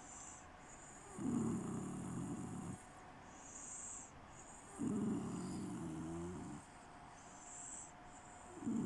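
Snoring: two long, loud, low snores about three and a half seconds apart, with quieter breaths between them and a third snore starting near the end.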